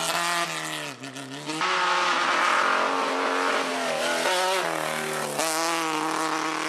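Small rally car's engine revving hard on a loose gravel stage. The engine note dips briefly as the throttle is lifted about a second in, then pulls again with its pitch stepping between gears.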